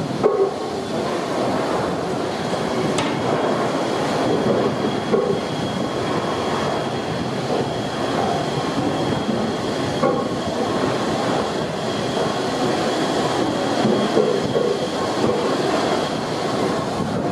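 Fowler steam ploughing engine running, a steady heavy mechanical clatter and rumble. A faint high steady tone runs through most of it.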